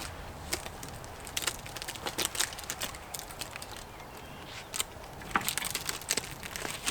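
Dry wood cracking and snapping: a string of irregular sharp cracks, coming thicker near the end.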